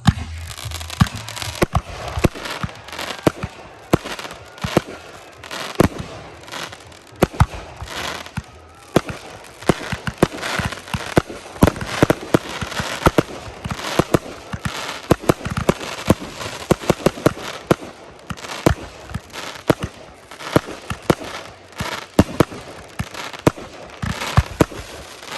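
Fireworks display going off: a dense, continuous stream of sharp bangs, several a second, over steady crackling.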